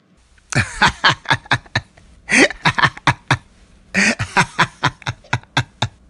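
A person laughing hard in two long bouts of quick, separate "ha" pulses, each dropping in pitch, with a short break about halfway through.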